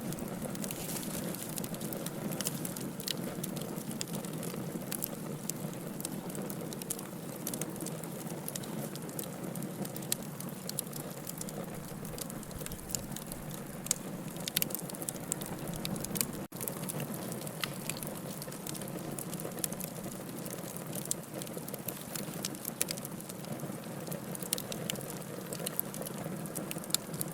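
Wood fire burning in a fireplace: a steady low rush of flame with frequent sharp crackles and pops scattered irregularly throughout. The sound drops out for an instant a little past the middle.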